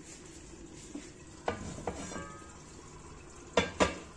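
Sharp knocks and clinks of metal cookware, two loud ones in quick succession near the end, over a faint frying sizzle.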